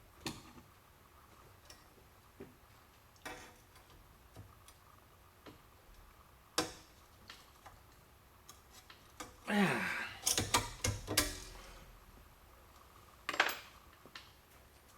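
Metal clicks, clinks and knocks of hand tools and trim clips being worked onto window-trim studs in sheet metal, with a burst of clattering about ten seconds in.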